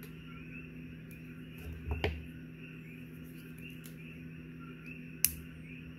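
Faint handling of a fishing hook and thin titanium wire as a loop knot is cinched down, over a steady low hum. A brief soft sound about two seconds in and one sharp click a little after five seconds.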